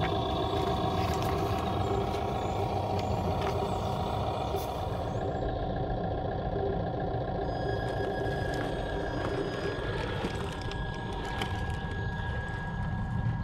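Recorded truck-like engine sound playing from a mini speaker mounted in an RC Humvee crawler: a steady, unchanging drone, because the looped sound file does not follow the throttle. A thin steady whine joins about eight seconds in.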